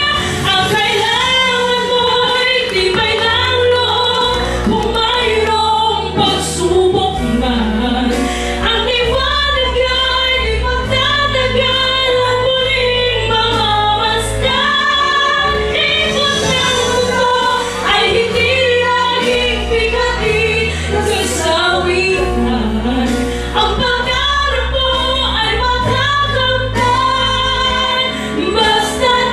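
Two women singing a duet through handheld microphones, taking turns and joining each other, over a musical accompaniment with sustained bass notes.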